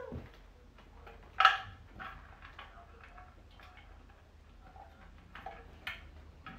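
Puppies: one short, high yelp about a second and a half in, among scattered light clicks and taps.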